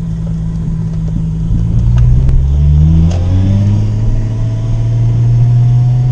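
Lexus IS300's 2JZ straight-six engine heard from inside the cabin while driving: the revs rise, drop at an upshift about three seconds in, then climb slowly again in the next gear.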